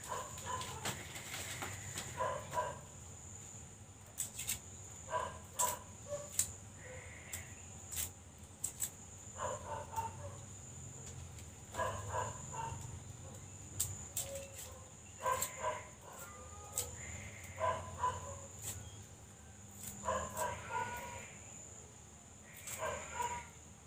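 Farm animals calling nearby in short clusters of notes that recur every two to three seconds, over a steady high whine, with scattered sharp clicks.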